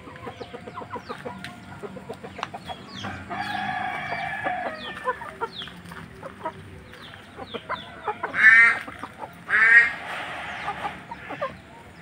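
Game chickens in a yard calling: a held crow-like call about three seconds in, then two loud squawking calls a little over a second apart near the end, with small chirps throughout.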